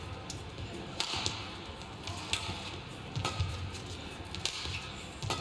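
Badminton rally: rackets striking the shuttlecock, a sharp hit about once a second, five in a row.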